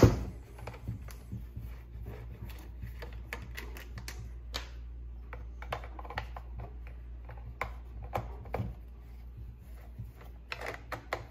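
Steel T27 T-wrench clicking and clinking against the chainsaw's Torx bolts as they are unscrewed: irregular small metallic clicks, with one sharp clack at the very start. A steady low hum runs underneath.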